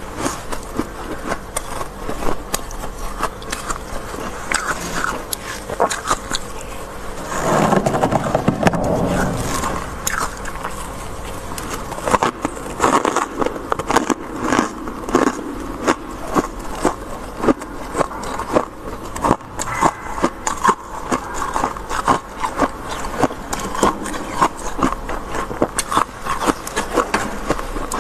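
A bare hand scraping soft frost from the walls of a freezer compartment, with crackly crunching as the frost packs and breaks, and a longer rasping scrape about eight seconds in. From the middle on comes a fairly regular series of crisp crunches, like biting and chewing freezer frost.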